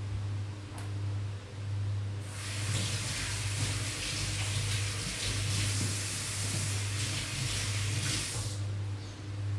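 Water rushing from a kitchen tap for about six seconds, starting about two seconds in and shutting off abruptly, over a steady low hum.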